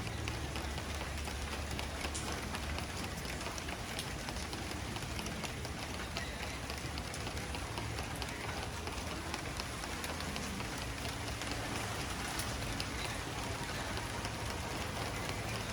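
Steady rain falling, with the patter of many individual drops hitting a surface.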